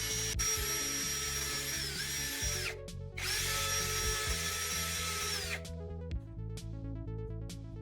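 A small electric power tool, drill-like, runs with a steady whine, winds down and stops about two and a half seconds in, then runs again for about two and a half seconds and stops. Background music with repeating notes follows near the end.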